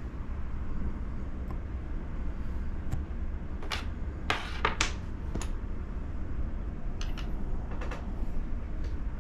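Scattered clicks and clacks from a mechanical keyboard with red switches, single presses and small clusters a second or so apart rather than continuous typing, over a steady low hum.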